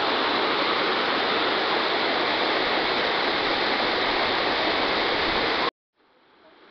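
Water rushing down a stepped cascade channel, a loud steady roar. It cuts off abruptly about five and a half seconds in, then slowly fades back up.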